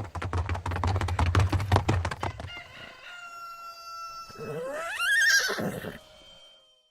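Horse hooves beating rapidly for about two and a half seconds, then a horse whinnying: one call that rises steeply in pitch, then wavers before fading.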